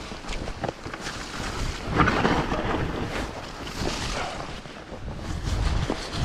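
Wind buffeting the microphone over a mountain bike's tyres rolling down a snowy dirt trail, with many short knocks and rattles from the bike over bumps.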